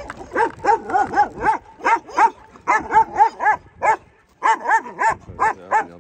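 Dog barking in a rapid run of short yaps, about three a second, with a brief pause about four seconds in.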